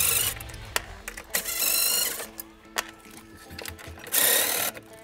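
DeWalt cordless impact driver hammering in three short bursts as it backs out the bolts holding a golf cart's factory battery charger; the middle burst is the longest.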